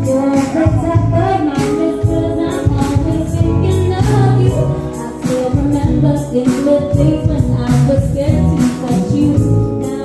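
Live band playing an R&B groove: a woman singing into a microphone over electric guitar, bass guitar, keyboard and a steady drum beat.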